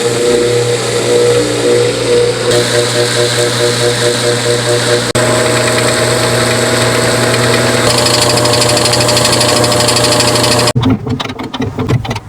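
General Electric washing machine running uncovered, making a loud, strange mechanical noise: a pulsing hum that steadies about halfway through and cuts off near the end. The noise comes from a shipping rod left inside the washer since installation, which has been resisting the machine.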